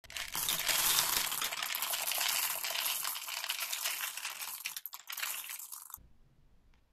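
A mass of small hard-shelled M&M's candies pouring and rattling into a glass bowl: a dense patter of countless tiny clicks that thins out and stops abruptly about six seconds in.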